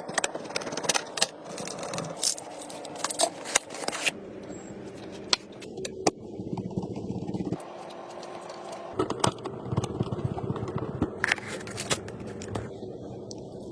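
Hands handling computer parts: a run of irregular clicks, taps and scrapes of plastic and metal, with a rattle now and then.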